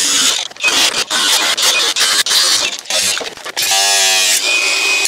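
Cordless angle grinder cutting through the rusted steel rear wheel arch lip of a Mercedes W123, which is thick with body filler. A harsh cutting hiss comes in broken, uneven bursts as the disc bites, then from about four seconds in it becomes a steady, high motor whine.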